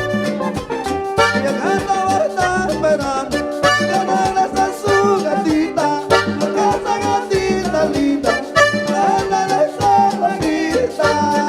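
Instrumental passage of a Panamanian música típica band playing live: an accordion carries the melody over a steady beat of drums and bass.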